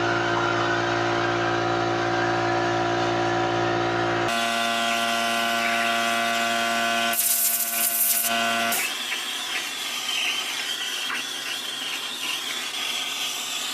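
A power carving tool running and cutting into wood. The motor holds a steady pitch, with abrupt changes in tone, and there is a louder, rougher stretch of cutting just past the middle.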